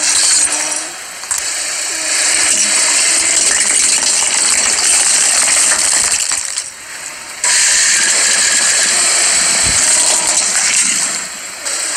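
Brittle plastic and glass objects cracking and crunching under a slowly rolling car tyre: dense crackling and clinking, broken by a few short dips where one crush cuts to the next.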